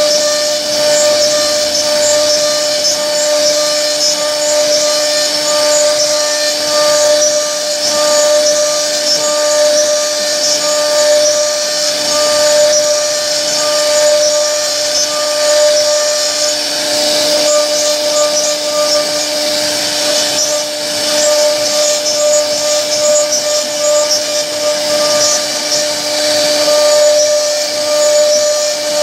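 CNC router spindle running with a steady high whine as its bit carves a decorative relief into a wooden door panel, with the hiss of wood being cut over it.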